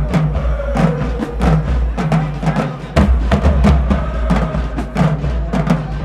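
Marching band playing: drumline hits on a driving beat over low sousaphone notes and brass lines.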